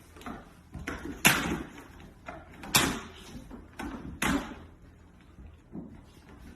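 A series of sharp bangs, roughly one every second and a half, each dying away quickly, with softer knocks between them.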